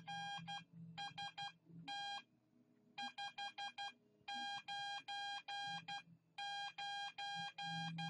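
Morse code sidetone: a steady beep of about 800 Hz keyed on and off in dots and dashes, sending the signal report "RST 599" (R, S, T, 5, 9, 9) once, from an Arduino driving an electronic keyer.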